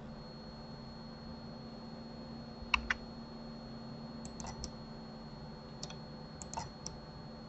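Computer mouse and keyboard clicks: a quick double click about three seconds in, then a few short clusters of light clicks, over a faint steady hum.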